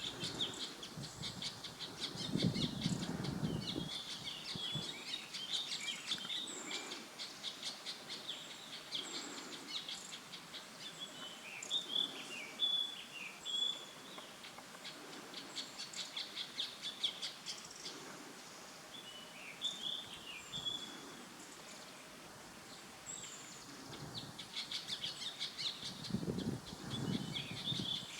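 Birds chirping and calling with many short, quick notes and trills, high-pitched and nearly continuous, with two brief low rumbles, one a few seconds in and one near the end.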